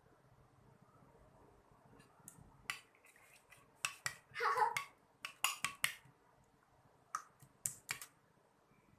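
A series of sharp clicks and clinks, like utensils knocking against a dish or jar, clustered between about two and eight seconds in. The loudest part comes about halfway through: a brief scraping sound that drops in pitch.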